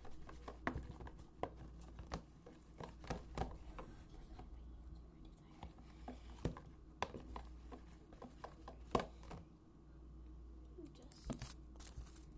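Irregular light clicks, taps and scrapes of slime being mixed by hand and with a metal spoon in a clear plastic tub.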